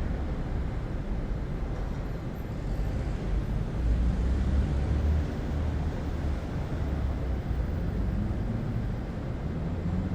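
City ambience heard from a distance: a steady low rumble of traffic, which swells slightly about halfway through.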